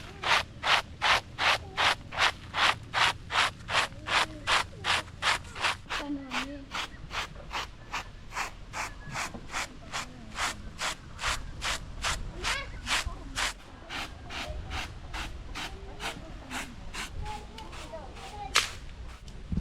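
Maize being ground by hand on a grinding stone: steady back-and-forth rubbing of stone on stone, about three strokes a second. The strokes are loud at first and grow weaker after about six seconds, and a sharp click comes near the end.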